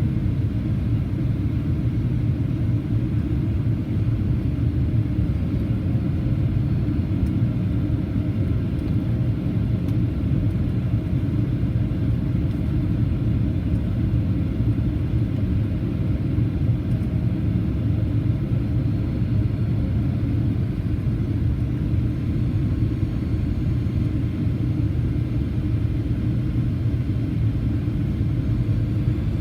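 Steady low rumble of a Boeing 737-800 in flight, heard from inside the passenger cabin: airflow over the fuselage and the CFM56 turbofan engines, even and unchanging throughout.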